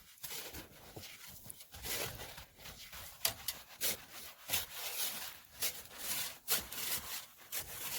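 Irregular scraping and crunching strokes in snow, a few a second, with no engine running.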